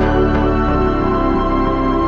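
Background music: slow, sustained new-age style chords, with a change of chord about two-thirds of a second in.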